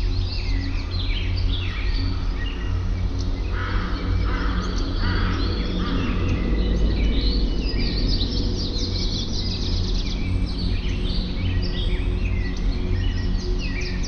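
Birds chirping and calling in quick overlapping trills and chirps, over a steady low hum.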